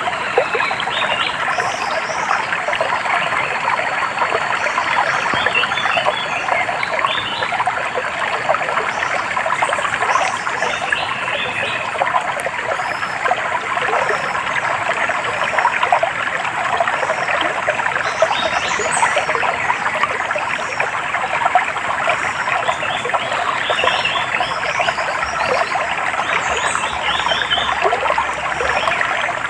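A stream trickling and gurgling steadily over stones, with small birds chirping in short runs of quick high notes every few seconds.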